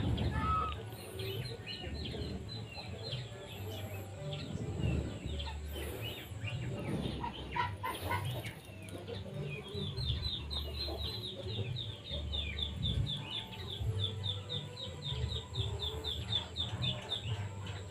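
Birds calling in the background: scattered short chirps, then from about ten seconds in a fast run of repeated high chirps, three or four a second.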